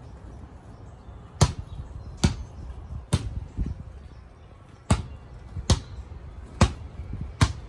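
Basketball dribbled on a concrete driveway: seven sharp bounces, roughly one a second, with a pause of almost two seconds partway through.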